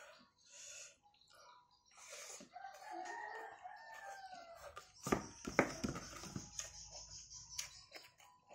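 A long drawn-out animal call, rising and then falling in pitch, about two seconds in; then several sharp knocks, the loudest sounds, around five seconds in.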